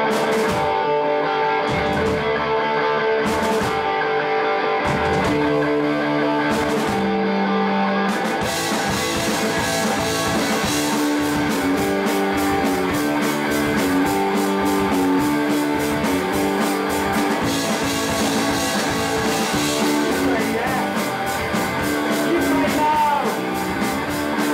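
Punk rock band playing live: an electric guitar opens the song with a few sharp hits, and the full band comes in about eight seconds in.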